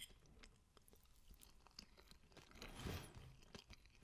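Faint chewing of a mouthful of cake with a firm biscuit-crumb base: scattered soft mouth clicks, a little louder about three seconds in.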